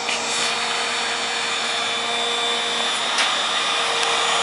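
A 1500-watt heat gun running steadily, its fan blowing with a faint steady hum, with a couple of light clicks over it.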